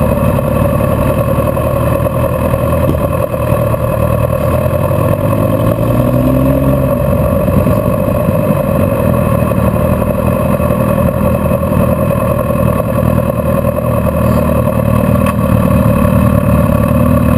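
Motorcycle engine running steadily at low speed, with a brief rise and fall in pitch about six seconds in.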